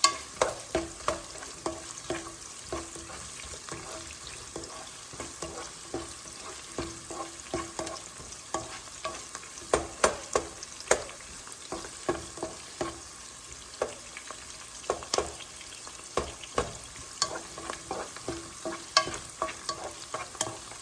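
Chopped onions frying in canola oil in a pan with a steady sizzle, broken by frequent irregular clicks and scrapes of a utensil stirring against the pan. The onions are being browned before the garlic goes in.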